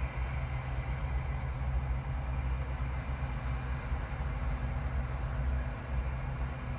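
Farm machinery engine running steadily with a low, even drone, from the combine harvester or tractor and baler working the barley field.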